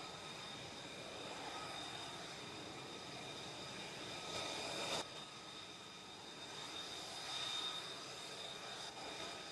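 F-35B jet engine running on the carrier flight deck: a steady high whine over a rushing hiss. It swells and then drops off suddenly about five seconds in, and swells again a couple of seconds later.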